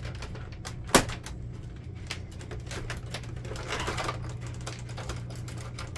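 Scattered small clicks and rattles of a Canon Pixma MX870's plastic housing and internal wiring being handled during disassembly, with one sharp, louder click about a second in. A low steady hum runs underneath.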